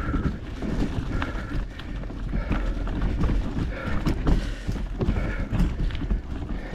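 A mountain bike rattling and knocking over a rough trail, with irregular sharp knocks over a steady low rumble, and the rider breathing hard.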